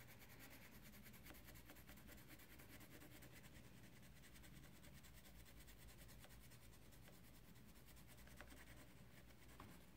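Faint scratching of a black wax crayon rubbed across paper in quick, even back-and-forth strokes.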